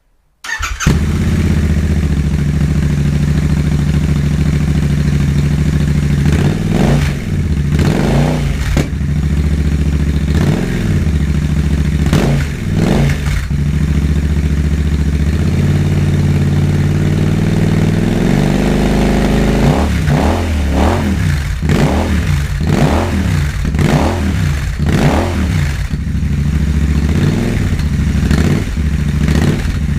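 Royal Enfield Interceptor 650's 648 cc parallel-twin engine through Enfield Precision slip-on silencers with the baffles in, idling and revved in short blips, with one longer rise in revs partway through and then a run of quick blips about one a second.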